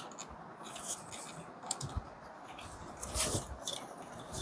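Light, scattered clicks and scrapes of hands handling plastic equipment parts and fittings.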